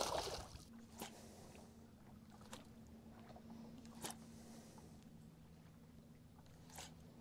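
Faint sounds aboard a fishing boat on open water: a steady low hum that sets in about a second in, with a few light, sharp taps spaced a second or more apart.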